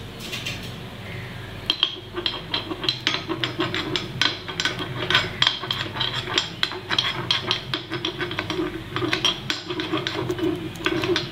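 A metal spoon scraping and clinking around the cups of a kuzhi paniyaram pan, spreading oil in each cup so the batter won't stick. The quick taps and scrapes begin about two seconds in and come several times a second.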